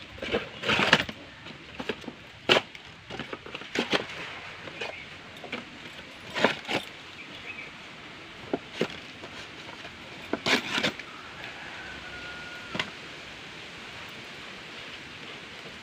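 Plastic snack wrappers crinkling and paper and cardboard rustling and tearing as they are pushed into a metal drum stove, in scattered short bursts.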